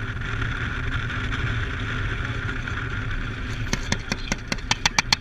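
Military truck driving, a steady engine and road rumble heard from the gun turret. About three and a half seconds in, a rapid, even string of sharp cracks begins, about seven a second, and runs to the end.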